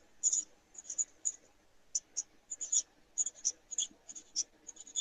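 Marker pen writing on paper: a quick run of short scratchy strokes, a few a second, as letters are drawn.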